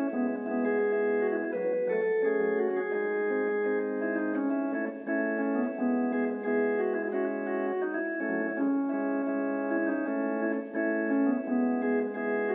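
Organ playing a hymn tune in slow, held chords, with notes changing step by step.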